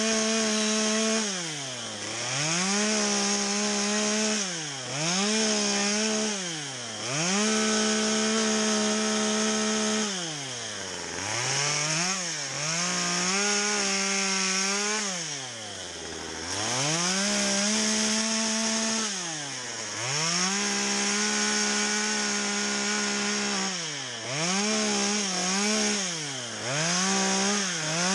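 Gas chainsaw cutting into a log, revved up to full throttle and dropped back toward idle about a dozen times in short bursts of one to three seconds as it clears out wood in a carving.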